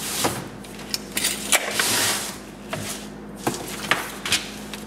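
Workbench handling noises: a strip of blue painter's tape pulled from its roll and torn off, which is the loudest sound, among light clicks and rustles of an aluminum grill mesh sheet being handled and smoothed on the bench, over a low steady hum.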